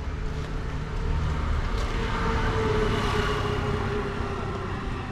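A motor vehicle driving past on the street, growing louder to a peak about two to three seconds in and then fading, over a steady low rumble.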